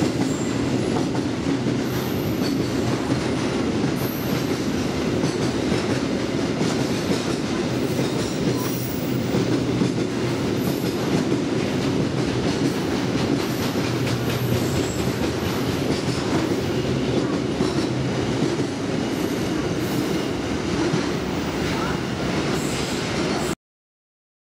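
Freight train of container flat wagons rolling past along the track: a steady rumble with wheels clattering over the rail joints and brief high wheel squeals. The sound cuts off suddenly near the end.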